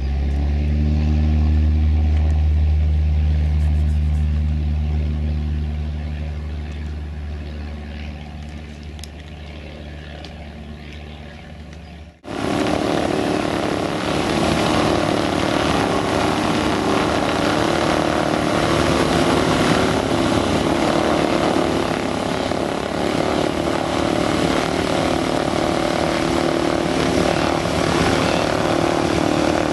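Cessna 172 Skyhawk's piston engine and propeller droning, rising slightly in pitch at the start and then fading over about ten seconds as the plane moves away. At about twelve seconds it cuts abruptly to a louder, rougher and steady engine-and-propeller sound, another Cessna 172 running close by.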